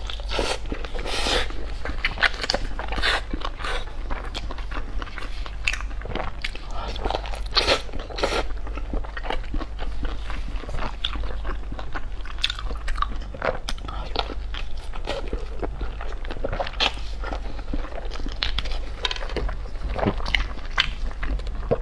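Close-miked eating of a Chinese vegetable sausage, a translucent casing filled with glass noodles and mixed vegetables: biting, chewing and pulling the casing apart by hand, heard as many irregular clicks.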